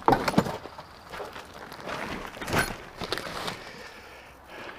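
A few sharp knocks and clatters of things being handled, the loudest right at the start, then lighter ones about halfway through.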